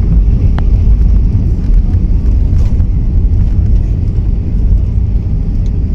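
Loud, steady low rumble inside the cabin of a jet airliner during its landing roll, with ground spoilers raised: engine noise and the wheels running on the runway as the plane slows.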